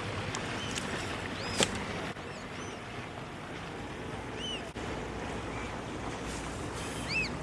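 Steady wash of water and wind around a kayak on open salt water, with one sharp click about a second and a half in and a few short, high arched chirps near the middle and end.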